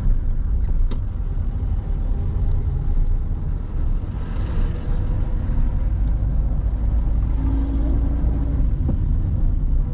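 Steady low rumble of a car driving at town speed, heard from inside the cabin: engine and tyre noise on the road. A short click about a second in, and a brief hiss that swells and fades around the middle.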